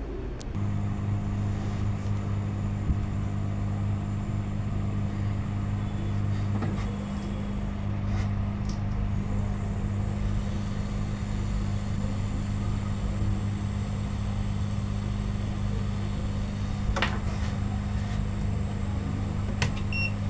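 Hot air gun switched on about half a second in and blowing with a steady hum, heating the laptop motherboard to desolder its failed capacitors. A couple of light clicks near the end.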